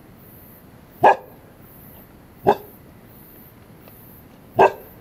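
A dog barking: three single, sharp barks, spaced about a second and a half to two seconds apart. These are alarm barks at something unseen, which the camper takes for some animal nearby.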